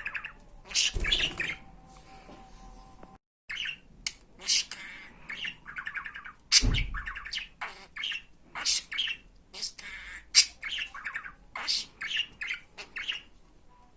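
Budgerigar chattering in quick, short chirps and squawks, one after another, with a louder call about halfway through.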